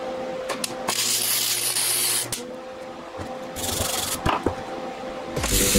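Lincoln Weld Pak HD wire-feed welder laying a short weld on a steel bracket, a steady hiss for about a second and a half. Then a wire brush scrubbing the fresh weld, in shorter scratchy bursts.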